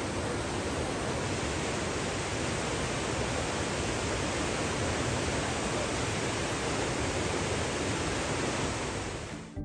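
Steady rushing of a rain-swollen brook in flood, the fast brown water making a constant roar, fading out near the end.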